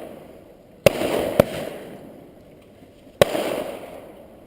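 Aerial firework shells bursting: a sharp bang about a second in, a second half a second later, and a third near three seconds, each trailing off in a rumbling tail that dies away over a second or two.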